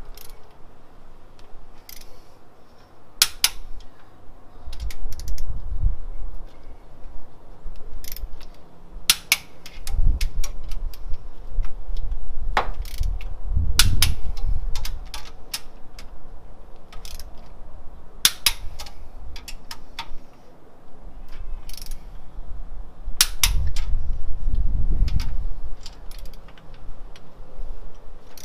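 Click-type torque wrench being pulled on LS1 cylinder-head stud nuts during a 50 foot-pound tightening pass. Sharp metallic clicks come singly and in small groups every few seconds, with low rumbles of handling in between.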